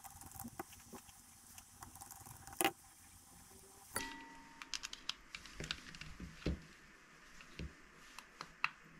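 Handling noise from a plastic Quran reading pen and its charging cable on a rubber work mat: scattered small clicks, taps and knocks, the loudest about two and a half seconds in and again about four seconds in.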